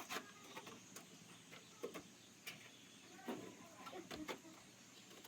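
Quiet handling sounds: a few light, scattered knocks and clicks.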